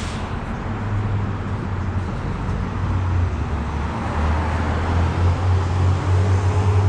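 Road traffic: a motor vehicle's engine and tyre rumble, growing louder toward the end as it comes close.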